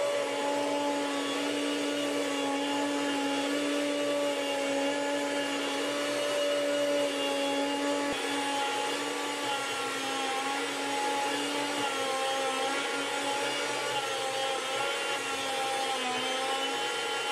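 Chef'sChoice 615 electric food slicer running, its motor-driven blade cutting thin slices from a hard-frozen block of pork. The motor gives a steady hum whose pitch shifts slightly a few times in the second half.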